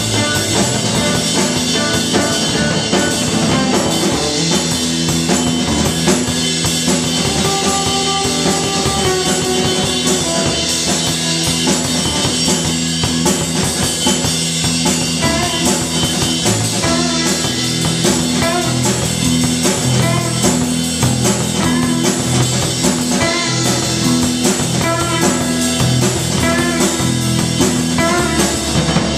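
A rock band playing live and loud, with a drum kit and its cymbals being struck steadily under sustained guitar.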